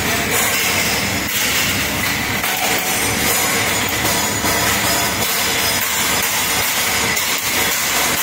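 CNC press brake running while bending sheet-steel cupboard panels: a steady machine din with a faint high whine.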